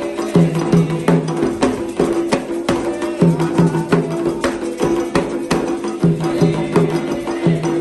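Atabaque hand drumming in the Candomblé style: pitched drum strokes in a fast repeating rhythm, with sharp clicking strikes over them.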